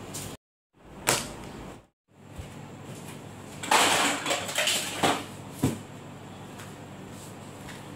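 Objects being handled and rummaged through: a sharp knock about a second in, then a burst of rustling and knocking, as of a cardboard box and its contents being shifted, with a last click shortly after, over a steady low room hum.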